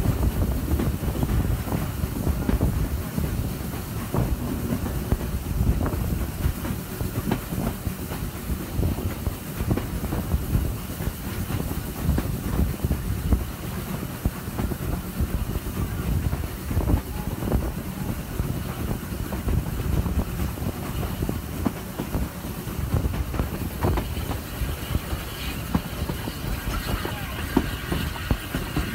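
Steam-hauled heritage passenger train running, heard from a carriage window: a steady low rumble of wheels on track with scattered clicks from the rail joints. A faint higher ringing tone comes in near the end.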